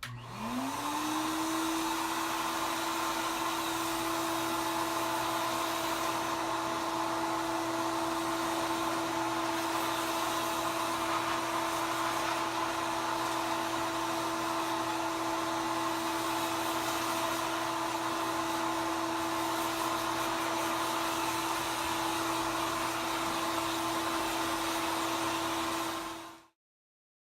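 Handheld hair dryer switched on: its motor spins up to speed within the first second, then runs steadily with a hum and a blowing hiss. The sound cuts off abruptly near the end.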